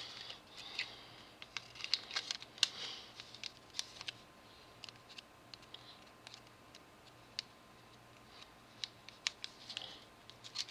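Scattered light clicks, taps and brief rustles of small items being handled by hand, denser in the first few seconds and again near the end, with a quieter stretch in the middle.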